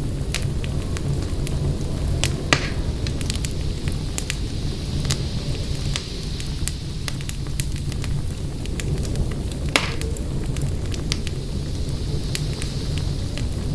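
Fireplace fire crackling: a steady low rumble of flames under many small irregular crackles, with two louder pops about two and a half seconds and ten seconds in.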